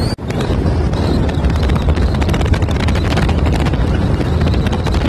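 Wind buffeting the microphone of a camera riding on a moving motorcycle, with the bike's engine and road noise underneath; the sound cuts out for an instant just after the start.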